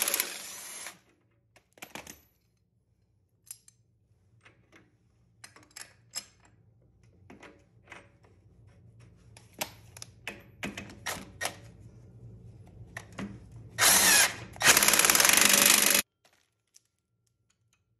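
A handheld power tool runs in loud bursts: one stops about a second in, and two more come near the end, the second cutting off abruptly. Between them are scattered metallic clicks and knocks of tools and parts being handled.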